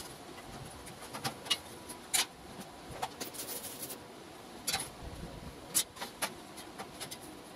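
Steel square tubing being handled and set against a clamped steel frame: scattered light metallic knocks and clinks, with a quick rattle of small clicks a little past the middle.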